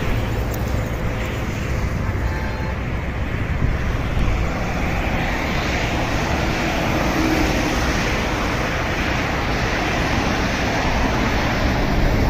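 Highway traffic passing: a steady rush of tyre and engine noise from cars, vans and coaches, growing a little louder toward the end as vehicles come close.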